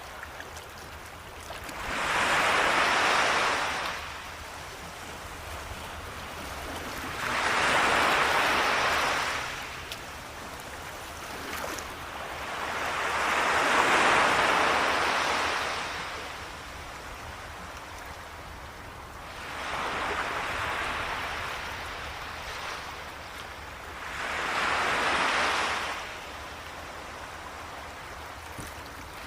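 Ocean surf: waves rolling in and washing back, rising and falling in five slow surges about five to six seconds apart, with a steady wash between them.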